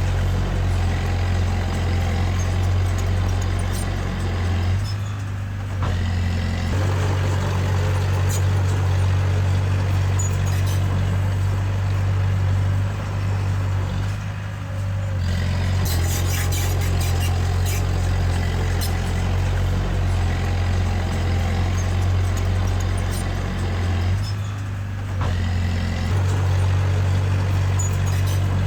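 Komatsu D20A bulldozer's diesel engine running steadily under load while pushing soil. Its sound drops back briefly three times, roughly every nine to ten seconds, as it eases off between pushes.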